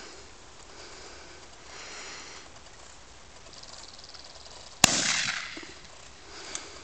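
A single shotgun shot about five seconds in: a sharp crack, then about a second of echo dying away.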